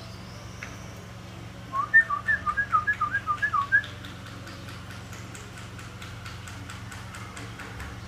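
Whistling: a quick run of about a dozen short notes, alternating between a lower and a higher pitch at roughly six notes a second, lasting about two seconds.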